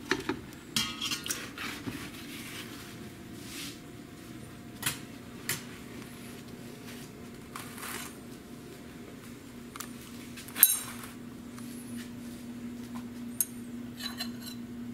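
Glass food container clinking and knocking against a stainless steel pot and a stone countertop as it is lifted out and set down, with scattered light clinks of dishes and one louder knock about two-thirds of the way through. A steady low hum runs underneath.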